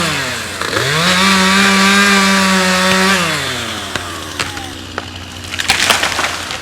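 Chainsaw revving: the engine dips, comes back up to full throttle and is held there for about two seconds while cutting, then drops back toward idle. Near the end comes a quick cluster of sharp cracks and snaps.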